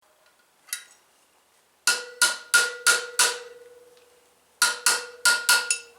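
Hammer striking metal: a single strike, then two quick runs of five sharp blows, each leaving a metallic ring that carries on between the blows.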